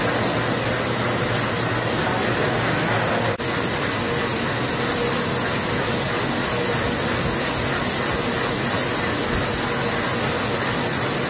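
Steady, even hiss of an FSE CHP1000 heat-perforating and punching film line running, with a momentary break about three seconds in.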